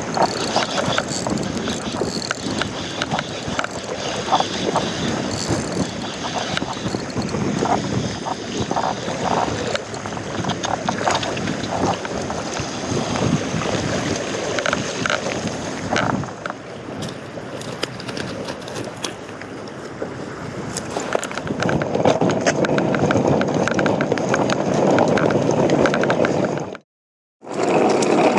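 Wind buffeting the microphone over sea water, with scattered small clicks and knocks of handling; the sound drops out briefly near the end.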